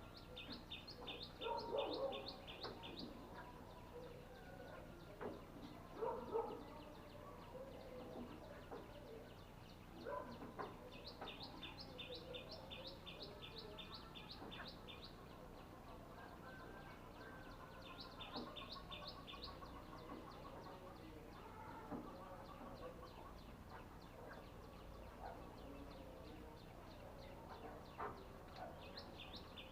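A small bird chirping in quick high trains, about ten chirps a second, in four bouts of two to four seconds each. Under them come scattered clicks and rustles of hands working on electrical wiring, loudest about two and six seconds in.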